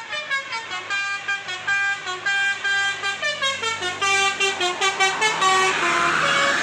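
A bus's 'telolet basuri' musical air horn plays a fast melody of short, stepping notes. A rush of noise rises near the end as the melody stops.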